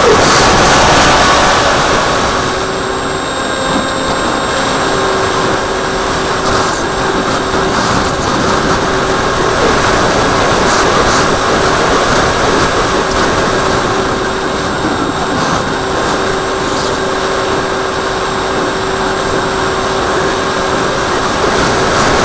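In-flight sound from a camera on the nose of an AXN Floater Jet RC foam plane: a steady rush of wind noise with the faint hum of its electric pusher motor and propeller. It is louder for the first two seconds or so, then settles a little lower.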